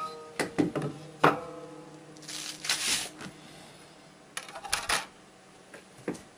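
Wooden beehive frame being handled and set down on a board: a handful of light wooden knocks in the first second or so, some ringing briefly. About two seconds in comes a papery rustle of a wax foundation sheet being handled, then a few more light taps.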